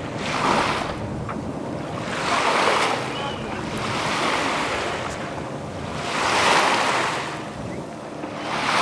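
Sea water rushing and splashing along a sailboat's hull, swelling and fading every two to three seconds, with wind buffeting the microphone.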